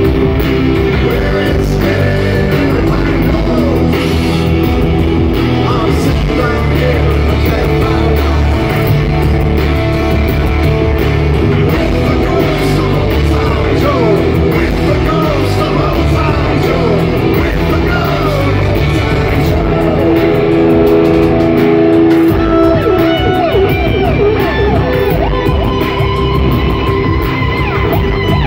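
Loud live rock music: a distorted electric guitar solo through a Marshall amplifier, its notes bending and wavering in pitch over a heavy low backing.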